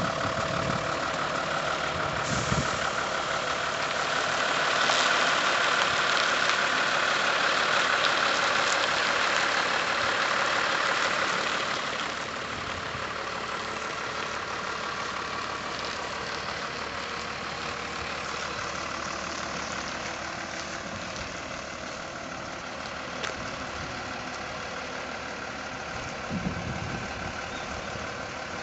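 Iveco lorry's diesel engine running at low speed while the truck manoeuvres. The engine gets louder about four seconds in, then drops back to a steadier, quieter note about twelve seconds in.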